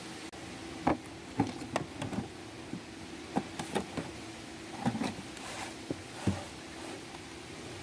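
Irregular clinks and knocks from hand tools and parts being handled during work on a car's AC compressor, about a dozen in all, over a steady low hum.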